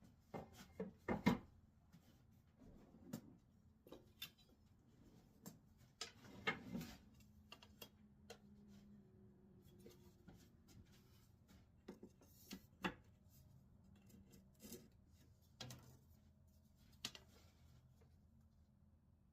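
Faint, scattered knocks and clicks of work pieces and tools being handled, the loudest about a second in, with a short scraping rub around six seconds, over a low steady hum.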